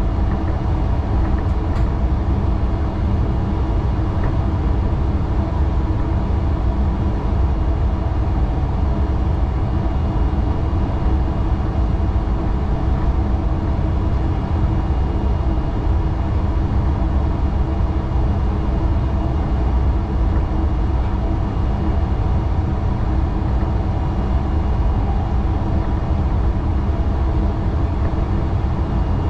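Steady running noise inside the driver's cab of a DB class 442 (Bombardier Talent 2) electric multiple unit under way: a continuous low rumble of wheels on track, with a faint steady high whine.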